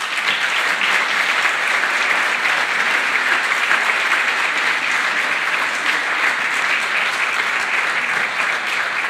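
Audience applauding steadily in a hall, many hands clapping.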